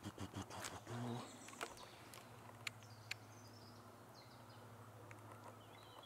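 Quiet woodland ambience with faint, scattered bird chirps and a low steady hum underneath; a few short clicks in the first second.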